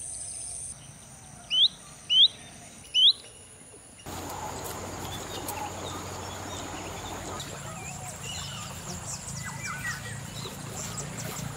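Outdoor ambience in tropical countryside: a bird gives three loud, short rising whistles over a steady high-pitched hum. About four seconds in, the sound changes to a busier background of many small bird chirps with a steady high tone.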